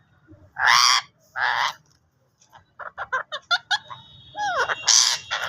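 Pet parrot squawking: two loud harsh squawks about a second apart, then a quick run of short chirps and clicks, and another loud squawk near the end. A thin steady high tone comes in about four seconds in.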